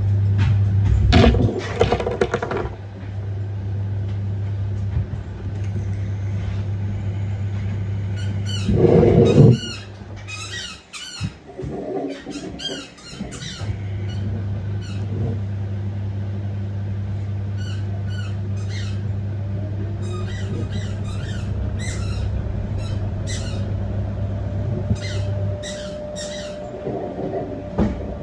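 LG F1222TD washing machine running with a low steady hum that cuts out about ten seconds in, comes back a few seconds later and stops again near the end, with short high squeaks and clicks over it.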